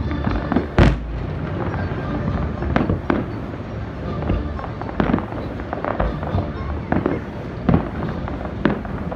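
Fireworks display: aerial shells bursting in a rapid, irregular string of sharp bangs, the loudest about a second in.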